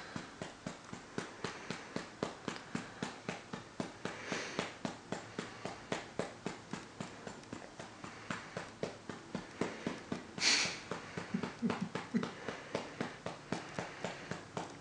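Hand patting a baby's back to bring up a burp, soft even pats about three a second. A brief hiss about ten seconds in is the loudest sound, followed by a short low grunt.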